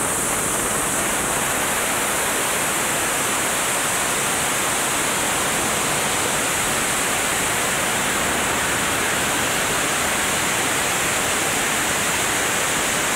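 Helicopter in flight: a steady, even rushing noise with a strong high hiss, unbroken throughout.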